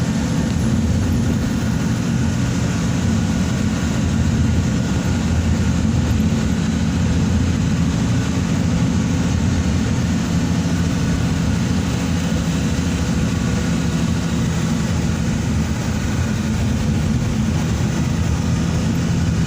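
Steady engine hum and road noise of a moving vehicle, heard from on board, holding an even pitch and level throughout.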